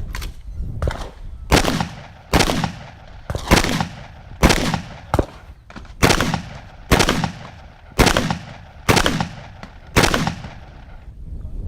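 Shotgun firing slugs in a steady string, about ten loud shots roughly one a second, each with a trailing echo, stopping about ten seconds in.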